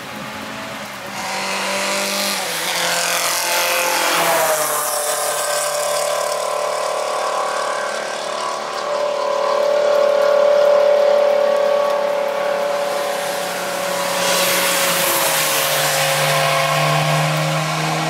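VW Golf Mk1 engine running hard on a wet track, with the hiss of tyres through standing water. Its note drops about four seconds in, then holds steady before more tyre hiss and engine noise rise near the end.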